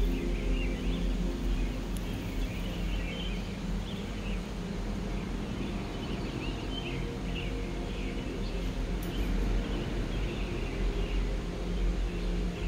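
Outdoor ambience of small birds chirping, many short irregular calls, over a low steady drone.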